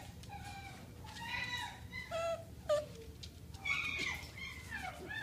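Young puppies whining and whimpering, a string of short, high cries one after another, several falling in pitch, with a longer falling whine about four seconds in.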